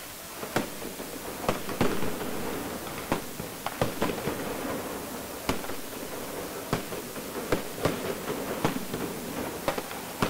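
Fireworks and firecrackers going off in irregular sharp bangs, about fifteen of them, over a steady wash of noise.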